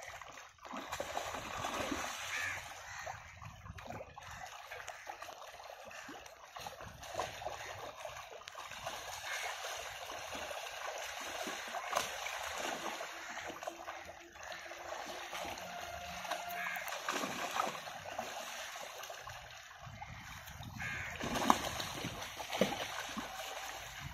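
Water splashing and sloshing as fish thrash and leap inside a drag net being hauled through shallow pond water by wading men. Sharper, louder splashes stand out about halfway through and twice near the end.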